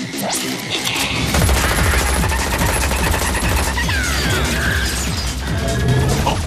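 Designed sound effects of rapid, continuous automatic gunfire from a mech's heavy gun. A deep rumble underneath grows heavier about a second in.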